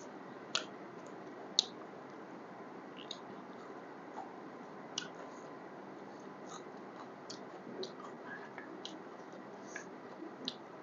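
Close-miked chewing of pork biryani: scattered short, wet mouth clicks and smacks at an irregular pace, the loudest about a second and a half in, over a steady low hiss.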